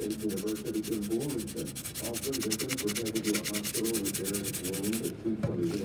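Fingertips rubbing fast over an old paper build sheet to clear the grime off it: a dry, scratchy rasp of many quick strokes a second that stops a little after five seconds in.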